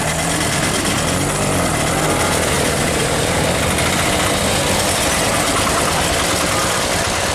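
Auto-rickshaw engines idling and running at a steady level, with the general din of street traffic.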